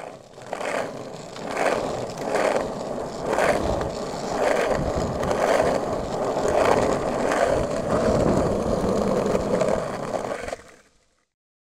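Skateboard wheels rolling on rough asphalt, a steady gritty rumble with a light click about once a second. It fades out near the end.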